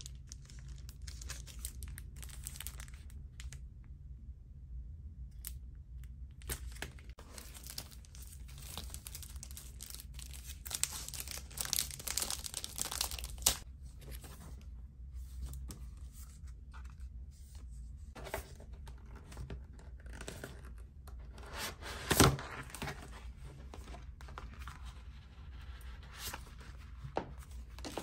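Clear plastic wrapping crinkling and rustling as it is pulled off a paper notebook, busiest a little before halfway, with one sharp, loud crackle of the plastic about three-quarters of the way in.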